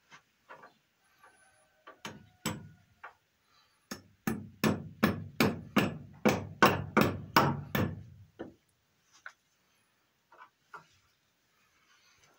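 Hammer driving a nail into wooden barn timber: two blows about two seconds in, then a quick even run of about a dozen blows, roughly three a second, and one last blow a little later.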